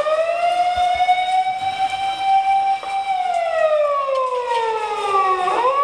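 Fire engine siren wailing in one slow cycle: the pitch rises, holds for about a second, falls over the next couple of seconds, and starts to rise again near the end.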